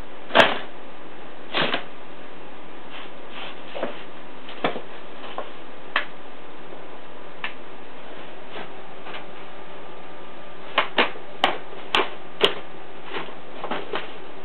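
Brown paper bag crinkling and crackling in scattered short bursts as cats paw at it and push into it, with a quicker run of crinkles near the end, over a steady background hiss.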